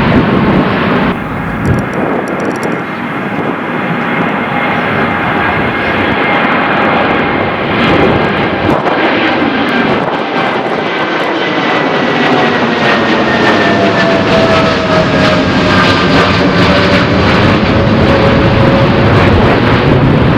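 Jet airliner taking off, its engines loud and steady at take-off thrust, with whining engine tones that slowly fall in pitch as it passes.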